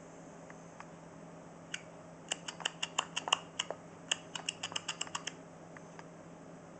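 Spray button of an empty hairspray aerosol can pressed over and over, giving a quick, uneven run of light clicks for about three and a half seconds from about two seconds in. No hiss of gas comes out: the can has no pressure left.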